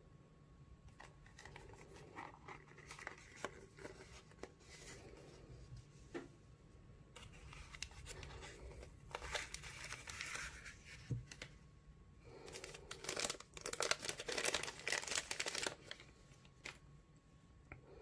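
Packaging being handled as a lighter is taken out of its box and its clear plastic bag: the plastic crinkles and rustles in several bouts, loudest toward the end.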